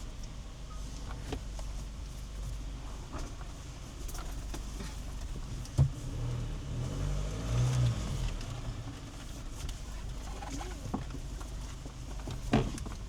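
Rely R8 pickup truck crawling over a rough dirt track: a steady low rumble broken by sharp knocks, the loudest about six seconds in and another near the end.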